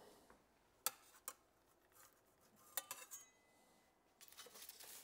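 Quiet kitchen with a few light clicks and clinks of a metal spatula against a foil-lined tray and plate as a cooked fish fillet is lifted, about a second in and again near three seconds. Aluminium foil rustles near the end.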